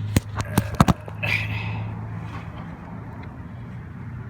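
Handling an empty tube of tyre-repair rubber cement: a quick run of sharp clicks and taps in the first second, then a brief hiss, over a steady low hum.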